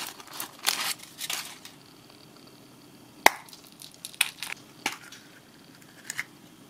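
A surprise egg being opened by hand: wrapper crinkling for about a second and a half, then a few sharp clicks and snaps, the loudest about three seconds in.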